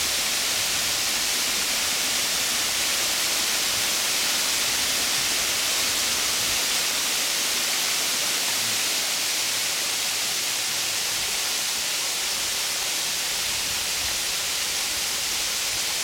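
Waterfall splashing down stepped rock ledges into a shallow pool: a steady rushing hiss of falling water.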